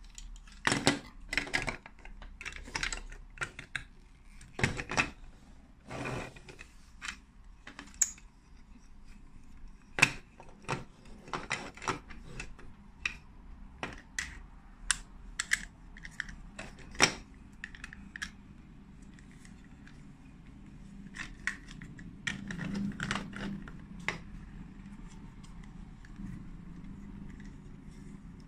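Plastic Lego Duplo bricks and toy vehicle parts clicking and clacking as they are handled and pressed together, with many sharp clicks. Near the end comes a denser stretch of rattling and scraping, then it goes quieter.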